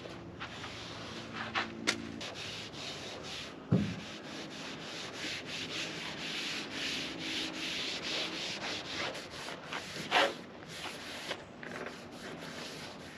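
Hand scrubbing, a rapid run of rubbing strokes over a hard surface, with a louder knock about four seconds in and again about ten seconds in.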